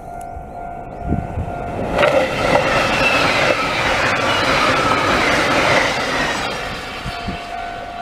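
Passenger train passing close by at speed through a level crossing: a loud rushing rumble with clattering wheels on the rails builds about two seconds in and eases after about six seconds. The crossing's warning bell rings steadily as a constant tone before and after the pass.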